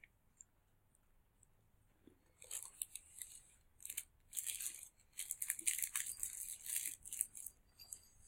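Crispy chocolate-coated hazelnut wafer being chewed, an irregular run of crackly crunches starting a couple of seconds in and going on for several seconds.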